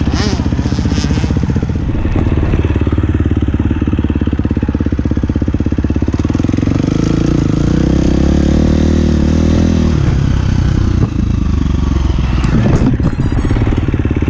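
Motocross bike engine running up close, revving up and down with the throttle; the pitch climbs and falls most plainly about halfway through.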